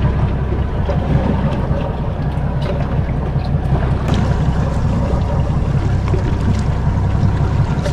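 Steady low rumble of wind buffeting the microphone on an open boat at sea, with water sounds and a few light clicks over it.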